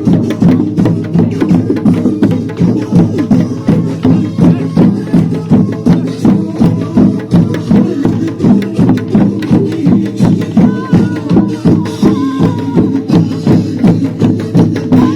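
Loud dance music for square dancing, with a steady drum beat at about two to three beats a second and heavy low end.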